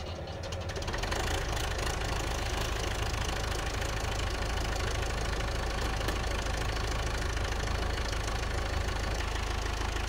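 Massey Ferguson 50E backhoe's Perkins diesel engine running just after a cold start. It grows louder over the first second, then runs steadily.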